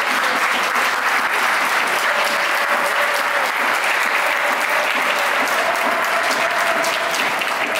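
Large stadium crowd applauding: a dense, steady wash of clapping.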